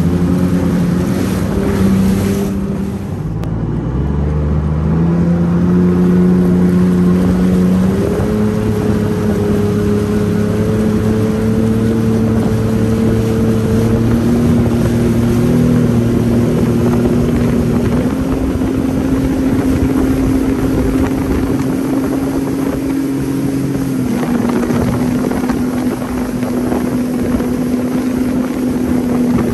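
Jet ski engine running under way, its pitch climbing in steps through the first twenty seconds, then dropping slightly a few seconds before the end.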